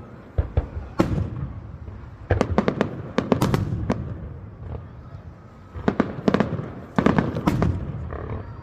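Fireworks display: aerial shells bursting with sharp bangs, a couple of single reports and then clusters of rapid cracks, each group trailing off in a low rumble.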